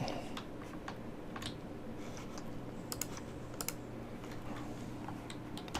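Computer keyboard keys clicking now and then, single taps and a few quick pairs, over a faint steady hum.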